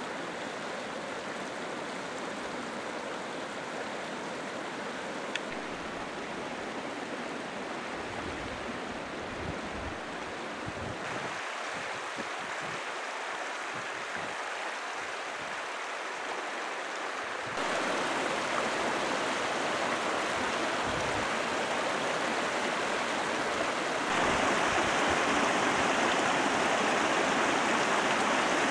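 Small mountain creek running over rocks: a steady rush of water that gets louder in two sudden steps in the second half.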